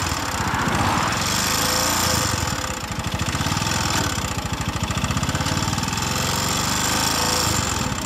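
Brand-new cruiser motorcycle's engine running at idle with a loud clattering rattle. It is the sign of a fault after the engine died suddenly and smoked.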